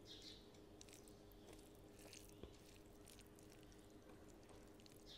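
Near silence: faint, sticky squishes and soft clicks of fingers mixing rice with smoked fish by hand, over a low, steady hum.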